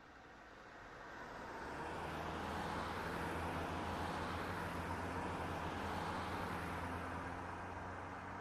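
Train passing, a steady rumble that swells in over about two seconds, holds, and eases a little near the end.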